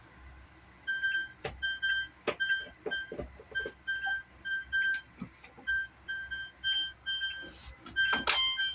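GE washing machine's control-panel beeper sounding short, high beeps over and over, about two a second, with a few sharp clicks in between. The washer keeps beeping like this on its own until it is unplugged.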